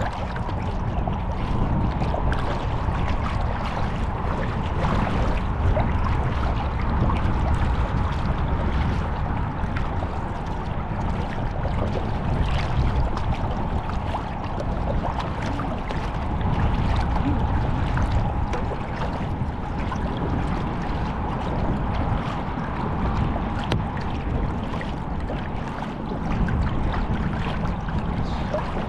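Kayak paddle blades dipping and splashing on each stroke, with choppy water lapping at the hull, under a steady heavy rumble of wind on the microphone.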